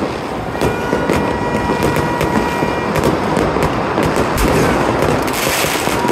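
Aerial fireworks going off in quick succession: sharp bangs several times a second over a continuous crackle, with a thin steady whistle in the background.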